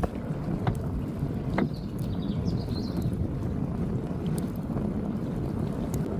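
Wind buffeting the microphone: a steady low rumble, with a few sharp clicks in the first two seconds.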